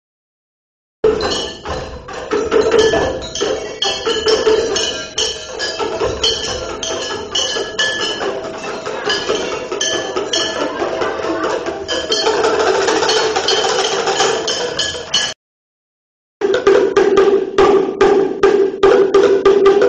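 Percussive music: fast, dense knocking and tapping over ringing pitched notes. It breaks off for about a second near the end, then starts again.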